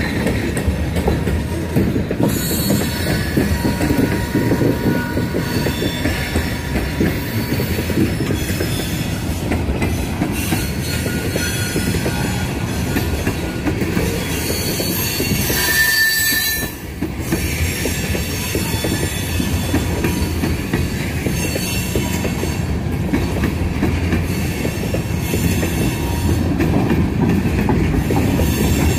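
Freight cars of a passing train rolling by: a steady rumble of steel wheels on the rails, with high-pitched wheel squeal coming and going.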